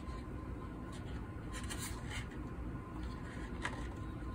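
Faint rubbing and scuffing of hands handling the Bobcat Miner 300 while screwing the antenna cable's connector onto its back by hand, with a few soft scrapes about two seconds in and near the end, over a steady low hum.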